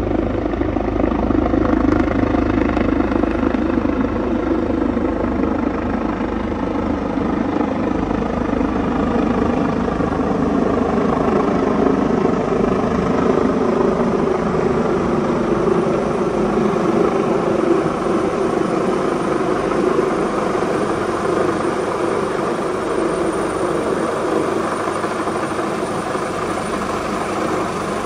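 Helicopter's rotor and turbine running steadily as it approaches low overhead and descends toward a field.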